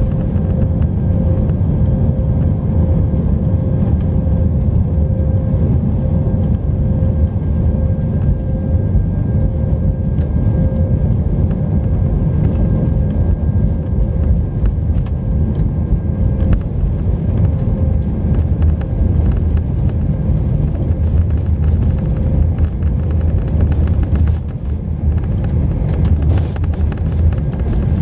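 Airbus A319 jet engines running steadily on the takeoff roll, heard from inside the cabin, with a held hum over a heavy rumble of the wheels on the runway. Small rattles and knocks come through all along.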